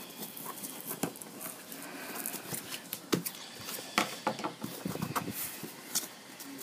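Irregular rustling with scattered light clicks and taps from small objects being handled close to the microphone, with several sharper clicks along the way.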